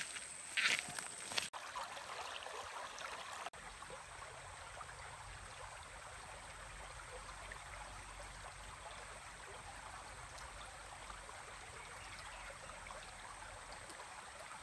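Shallow creek flowing with a soft, steady trickle. In the first second or so, a few footsteps in rubber sandals crunch on the gravel of the creek bank.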